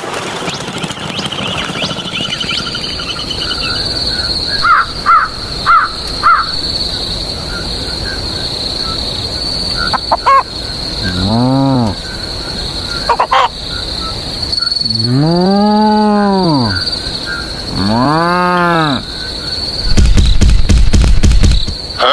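Cattle mooing three times, each call rising and falling in pitch, with short bird calls between them over a steady high insect whine. A loud low rumble comes near the end.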